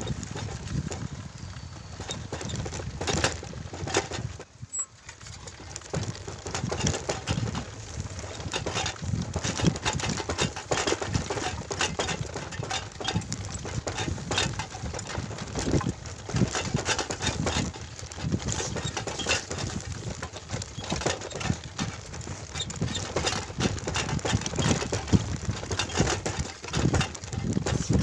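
Motorcycle riding along a bumpy dirt footpath, heard as dense, irregular crackling and knocking rumble with no clear engine note.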